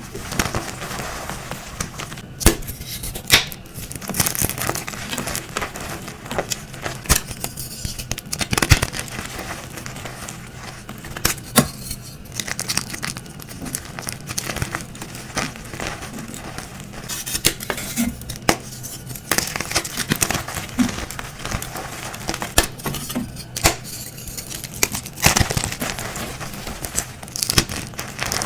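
Dyed gym chalk blocks being crushed and crumbled: a dense run of irregular crunches and crackles, with sharper cracks every second or so.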